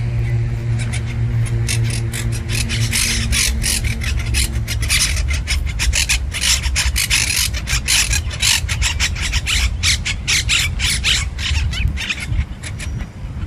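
Green parrots squabbling: a fast, irregular run of harsh, rasping screeches, thickest in the middle, over a low hum.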